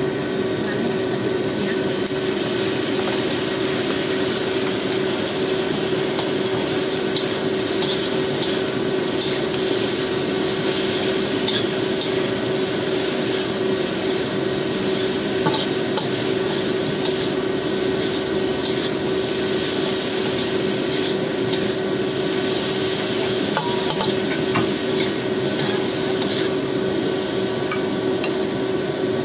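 Tempeh and salted fish sizzling in a wok while a metal spatula stirs and scrapes the pan, with small scattered clicks from the spatula. A steady hum runs underneath.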